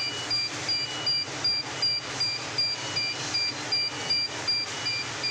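Machinery running with a regular pulse about three times a second and short high beeping tones repeating in step, over a low steady hum.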